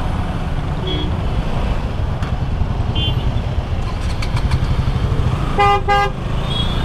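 KTM Duke 200's single-cylinder engine running at low revs in slow traffic, a steady low rumble. About five and a half seconds in, a vehicle horn gives two quick toots, the loudest sound.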